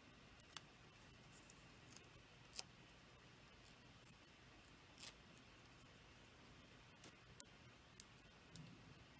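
Faint handling of paper and cardstock as small release backings are peeled off foam adhesive dimensionals, with scattered sharp little clicks and ticks.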